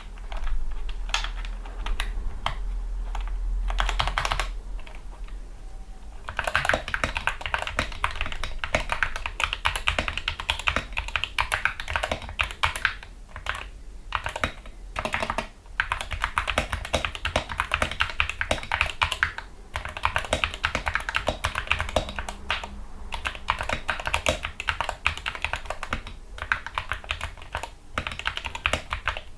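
Gamakay MK61 60% keyboard with lubed Gateron Yellow optical linear switches, PBT keycaps and foam inside, being typed on. A few separate keystrokes come first, then fast continuous typing from about six seconds in, broken by brief pauses.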